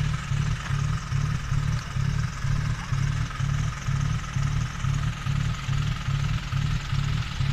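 Backhoe loader's diesel engine running at idle, a steady low throb that pulses evenly several times a second.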